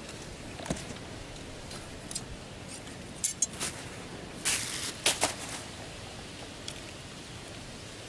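Scattered light clicks, taps and rustles of a bird trap being set by hand: a red plastic basket and small wooden trigger sticks handled, with string, on sand. The handling is loudest in a cluster a little past the middle, over a steady hiss.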